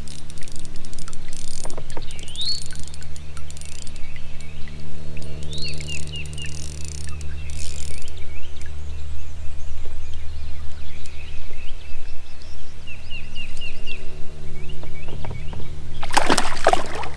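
Songbirds calling with rising whistles and runs of short chirps over a steady low hum. About sixteen seconds in comes a loud splash lasting about a second: a hooked fish thrashing at the surface beside the kayak as it is reeled in.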